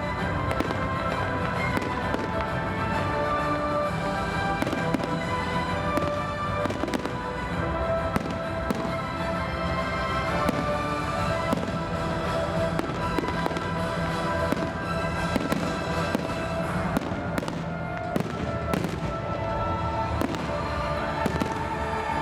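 Fireworks display: many irregular bangs and crackles, with music playing throughout.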